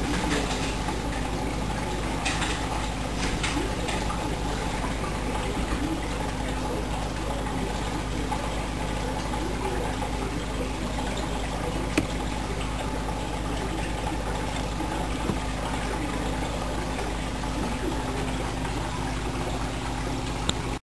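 Steady hum with a water-like rushing noise, as of an aquarium pump or filter running. One sharp click about twelve seconds in.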